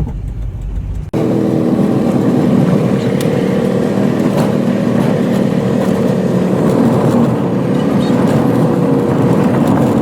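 Ford 6.0 Power Stroke V8 turbodiesel in a dump truck running steadily while driving. A low rumble gives way abruptly, about a second in, to a louder, steady engine drone with a clear pitch.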